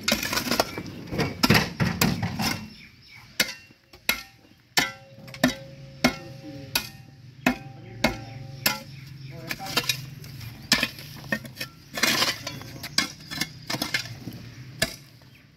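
Steel spade chopping and scraping into packed soil and tree roots: a series of sharp strikes, about one or two a second, over a steady low hum.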